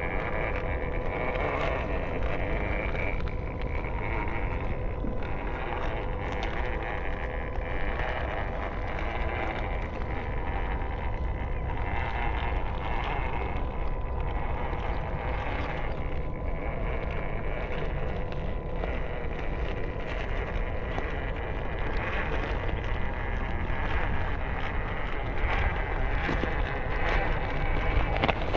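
A WPL C44KM RC Toyota FJ45 scale crawler driving over loose gravel: its small electric motor and gearbox whine steadily while the tyres crunch and crackle on the stones. Wind rumbles on the microphone underneath.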